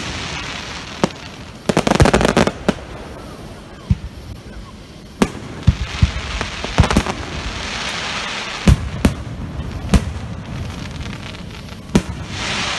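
Aerial fireworks bursting: sharp bangs about every second or so, a cluster of rapid crackling pops about two seconds in, and a crackling hiss from burning stars between the bangs.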